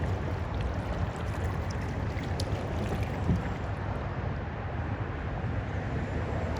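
Steady wind rumble on the microphone over the sound of water around a kayak, with a small knock about three seconds in.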